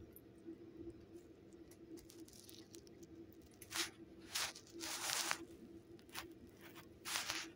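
Calico kitten grooming herself right by the microphone: about five short, scratchy rasps in the second half, irregularly spaced, one lasting about half a second.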